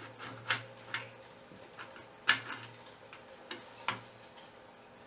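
Scattered sharp plastic clicks and knocks, about six of them, the loudest a little over two seconds in, as a floppy drive is pressed and seated into an Amiga 1200's plastic case by hand.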